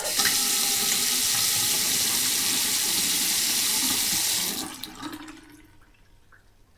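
Sink tap running for hand washing, a steady splashing hiss of water into the basin, shut off about four and a half seconds in and dying away within a second, followed by a few faint small ticks.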